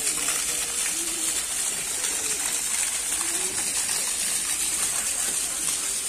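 Water from a fountain pipe gushing and splashing into a pond, a steady rushing hiss, with pigeons cooing several times over it.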